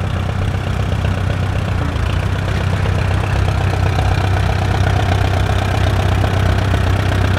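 Antique Allis-Chalmers tractor engine running steadily at low speed, getting slightly louder about four seconds in.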